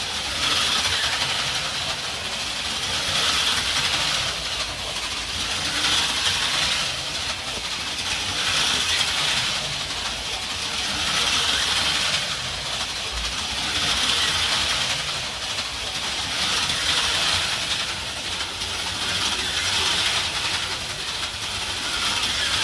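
HO-scale AFX slot cars (Life-Like stadium trucks) running at 18 volts, their small electric motors whining and the pickups buzzing on the rails. The sound swells and fades about every two and a half to three seconds as the cars lap past.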